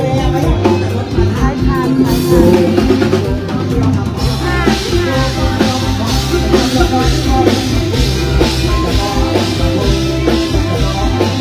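Live Isan mor lam–luk thung band playing loud dance music, with a drum kit keeping a steady beat over a strong bass line.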